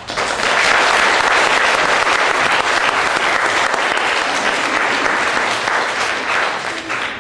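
Audience applauding in a theatre. The clapping breaks out suddenly, holds steady and thick, then tapers off near the end.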